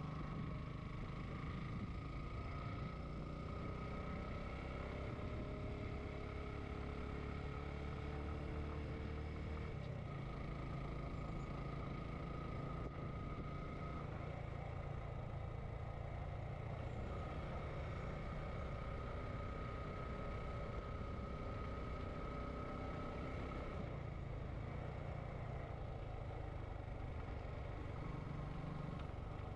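Motorcycle engine running steadily while riding, heard from the rider's helmet, with road noise; the engine note shifts about ten seconds in.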